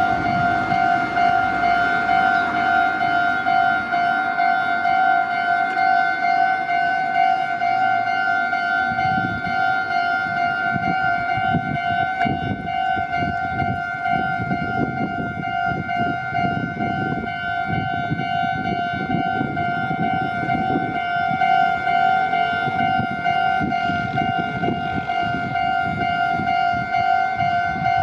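Japanese railway level-crossing warning bell ringing its steady, repeated electronic "kan-kan" alarm. Partway through, the low rumble and wheel clatter of a passing train comes in under the bell and fades again.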